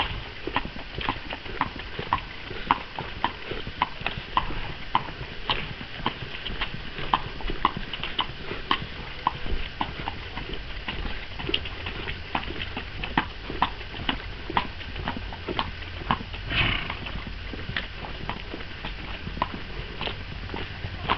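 Horse hooves clip-clopping at a steady walk on a tarmac road, roughly two to three hoof strikes a second. A short breathy rushing noise comes about two-thirds of the way through.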